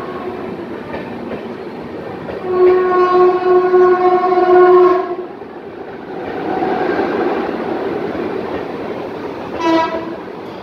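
Passenger coaches rolling past along a station platform with a steady rumble, as the train arrives. A train horn sounds one long, steady blast a few seconds in, and then one short toot near the end.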